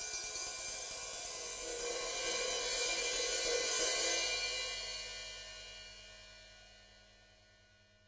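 Ride cymbal ringing, its shimmering wash swelling to its loudest about four seconds in, then decaying and fading away.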